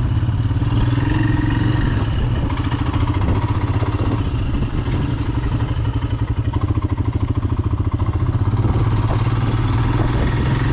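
Motorcycle engine running at low revs while riding, a steady fast pulsing beat.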